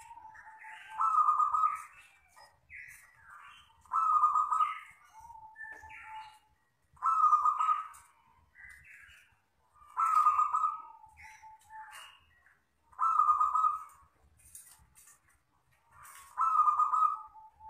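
A local wild-strain zebra dove (perkutut) cooing its song in six loud, similar phrases about three seconds apart, each ending in a lower drawn-out note, with softer calls in between.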